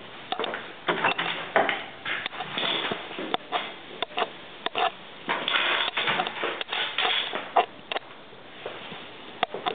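Irregular clicks and knocks mixed with short bursts of rustling, close to the microphone.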